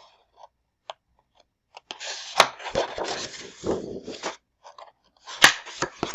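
Sheets of scrapbook paper being handled and turned, rustling and crinkling with a few sharp crisp snaps, starting about two seconds in and coming in two spells.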